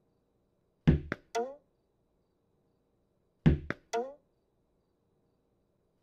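Cartoon sound effect of a tennis ball thrown against a wall: a heavy thud followed quickly by two lighter bounces, the last with a short ringing tone. The set of three comes twice, about two and a half seconds apart.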